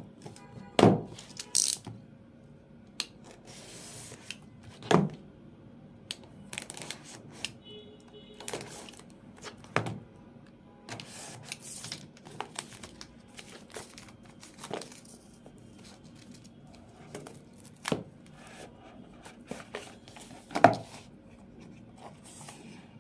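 A smart watch's retail box being unpacked by hand: packaging torn open and plastic and paper crinkling, with scattered clicks and knocks as the box parts are handled.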